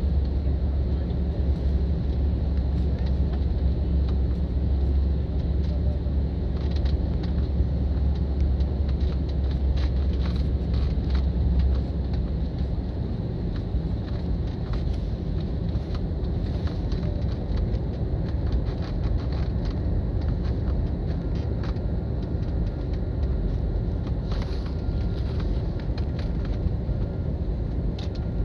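Jet airliner cabin noise during landing: a steady low rumble with scattered light clicks and rattles, the deepest part of the rumble dropping away about twelve seconds in.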